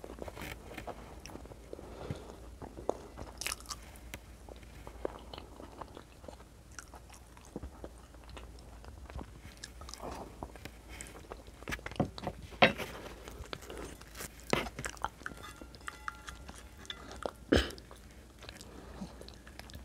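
Close-miked chewing and wet mouth sounds of someone eating a soft stew of white beans and meat in sauce with bread. Scattered sharp clicks run throughout, with a few louder ones in the second half.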